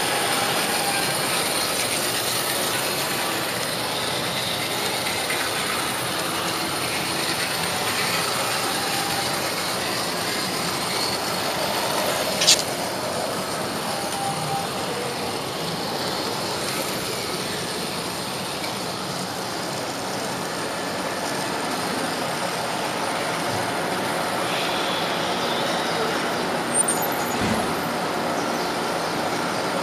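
Electric model train running along the track, a steady mechanical rattle of its motor, gears and wheels on the rails, with a sharp click about twelve seconds in and a smaller one near the end.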